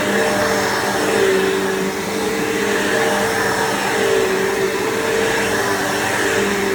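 Bissell PowerForce bagged upright vacuum running steadily, its motor hum wavering slightly in pitch over the rush of airflow.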